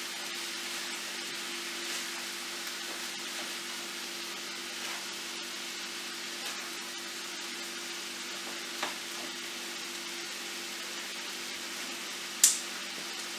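Chicken and vegetables sizzling in a skillet over a gas flame as they are stir-fried with a spatula, with faint scrapes and one sharp clink of the spatula on the pan near the end. A low steady hum runs underneath.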